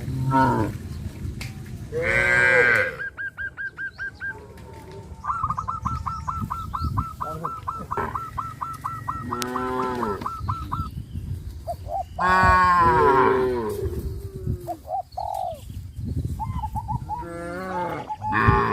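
Cattle mooing several times, the loudest calls about two seconds in and again around ten and thirteen seconds. Between the moos runs a fast, evenly repeated high chirping call.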